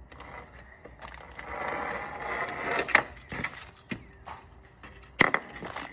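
Plastic parts packaging being torn open and handled: a rasping tear lasting about two seconds, followed by a few sharp clicks of small parts.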